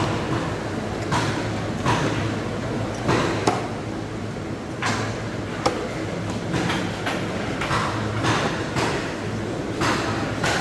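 Knife strokes on a cutting board while a stingray is cut up: irregular short knocks and brief scraping strokes, a dozen or so, with a couple of sharper chops, over a steady low hum.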